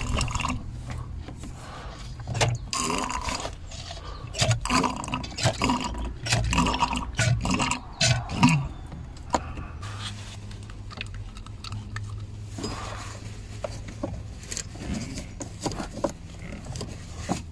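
Old brake fluid being sucked out of a car's brake fluid reservoir through a clear tube into a hand suction bottle: irregular gurgling and slurping with clicks of the tube and bottle, for roughly the first half. Then it goes quieter, with a low steady hum and a few scattered clicks and scrapes as the work goes on.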